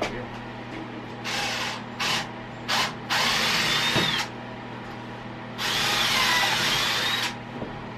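Cordless drill/driver running in a few short bursts, then two longer runs, as screws are driven to mount a cabinet door hinge.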